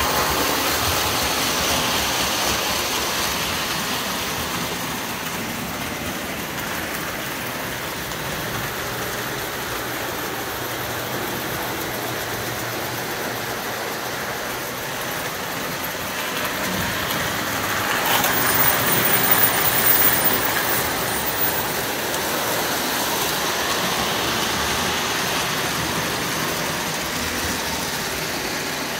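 Lionel postwar O-gauge steam locomotive pulling passenger cars on tinplate three-rail track: a steady whir and rumble of the electric motor and wheels. It grows louder for a few seconds about two-thirds of the way through.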